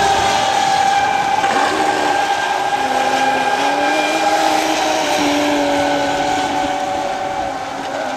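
Two fast electric RC racing boats, a 50" Expresscraft Thunderbolt and a 60" Expresscraft MTI Cat, running at speed: their motors give two steady high whines at different pitches, the lower one wavering as the boats turn and throttle, over a hiss of spray and wind.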